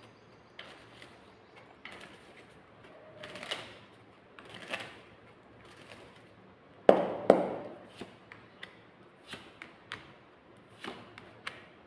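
Tarot cards being shuffled and handled, soft swishes and light clicks, with two sharper snaps about seven seconds in as cards are drawn and laid down on the table.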